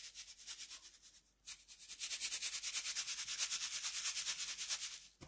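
Dried homemade egg noodles shaken in a round hand sieve, a fast rhythmic rustling rasp of about eight or nine shakes a second as the excess flour is sifted off. It breaks off briefly a little over a second in, then resumes and stops just before the end.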